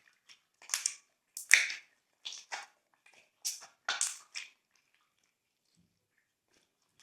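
Glossy slime being squished and mixed: a quick run of short wet crackles and squelching pops that stops about four and a half seconds in.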